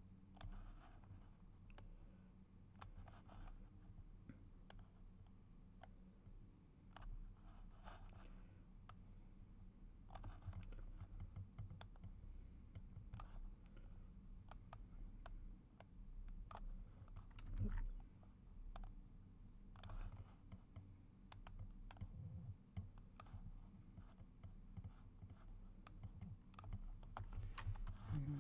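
Faint, irregular clicks of a computer mouse and keyboard, single clicks spaced about a second apart, over a low steady hum. There is one louder thump a little past the middle.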